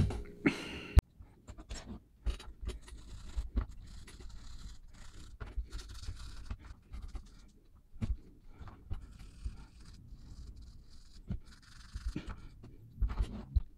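Toothbrush bristles scrubbing diecast model parts in a plastic tub of foamy liquid, working off loosened paint: irregular scratching strokes with small clicks and knocks against the tub.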